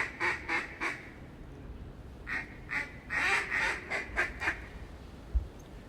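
Mallard hen quacking in two runs: a string of quacks at about three a second that stops about a second in, then a second run of about seven quacks a couple of seconds later. A dull low bump comes near the end.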